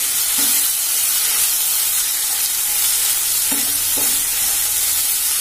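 Chopped chicken and masala sizzling steadily in a nonstick pan while a wooden spatula stirs and turns it, with a few brief scrapes along the way: the chicken being sautéed dry in oil.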